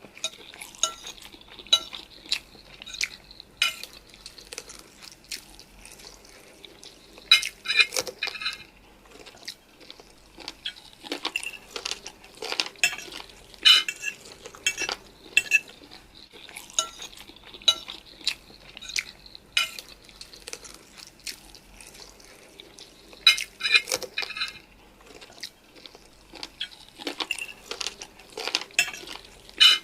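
Eating sounds: cutlery clinking and scraping against a dish while spicy noodles and chicken are eaten, as irregular sharp clicks that bunch into quick clusters every several seconds.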